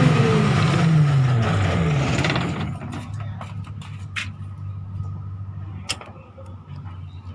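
A generator set's engine running, with a loud rush of noise at first while its pitch falls steadily over about two seconds. It then settles into a quieter, steady hum with a few sharp clicks.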